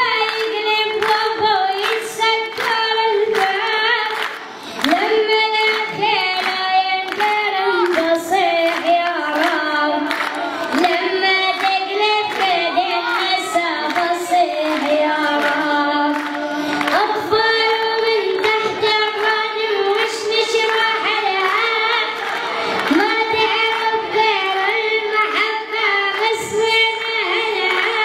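A boy singing an unaccompanied Arabic nasheed into a microphone, in a high child's voice with long held notes and ornamented, bending phrases.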